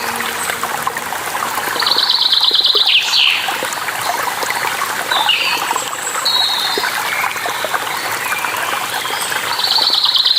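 Running water flowing steadily, with small birds chirping over it; a rapid trill of quick repeated notes sounds about two seconds in and again near the end.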